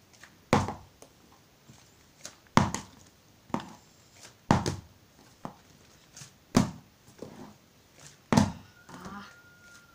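Plastic bottle being flipped again and again, landing with sharp thuds on a hardcover book on a carpet, about one landing every second or two, each followed by a few smaller knocks as it wobbles or tips over.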